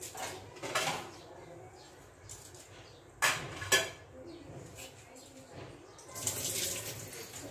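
A few sharp knocks, the two loudest about three seconds in, then water being poured out of a bowl into a stainless-steel sink for about a second near the end: the soaking water drained off the rice.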